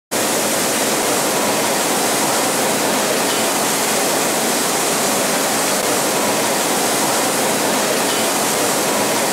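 Steady rushing factory noise of a fig-packing plant's machinery and air handling, an even hiss with a faint steady whine under it.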